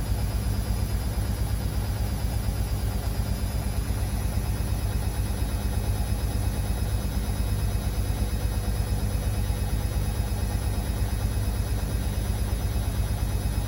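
Beko WA 1050 washing machine running steadily: a low drone that pulses quickly and evenly throughout.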